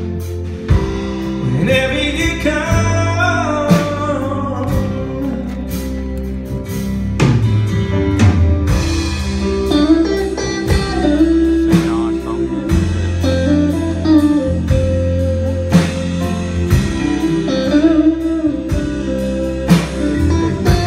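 Live band playing a country-pop ballad, with a guitar carrying a melody over bass guitar and drums.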